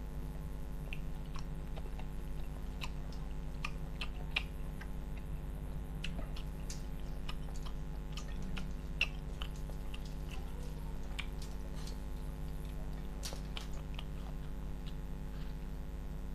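Close-miked chewing and lip smacking of a man eating rice and curry by hand: scattered short wet clicks and smacks over a steady low hum.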